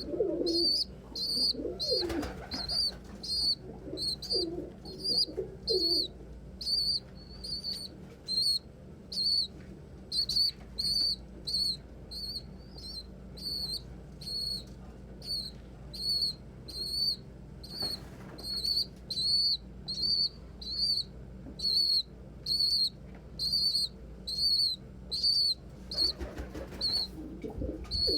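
A young pigeon peeping steadily, short high-pitched peeps about three every two seconds, the begging call of a squeaker. Adult pigeons coo in the first few seconds and again near the end, and brief wing flaps come a few times.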